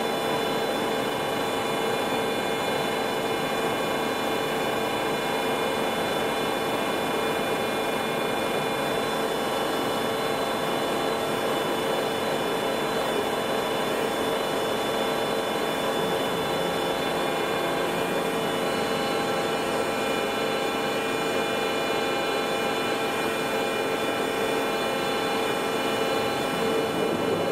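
Large Waldrich Siegen double-column CNC milling and boring machine running, a steady machine hum with several held whining tones as its spindle ram moves down.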